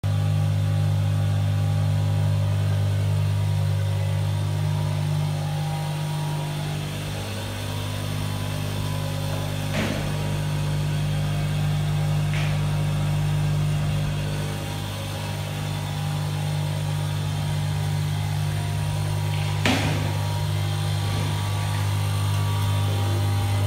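Vibratory bowl feeder of a nylon cable tie machine humming steadily with a low, even drone, broken by a few short, sharp clicks.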